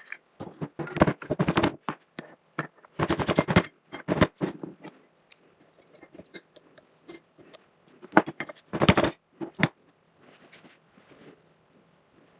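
Metal workshop parts being handled: bursts of rapid rattling and scraping, three louder spells of a second or so each, with scattered clinks and taps between them.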